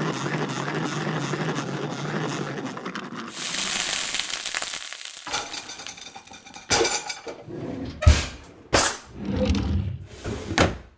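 A run of short kitchen sound effects. First a steady sizzling hiss with a low hum, then a brief burst of high hiss. From about seven seconds in, a string of separate sharp knocks and clatters like dishes and utensils being handled.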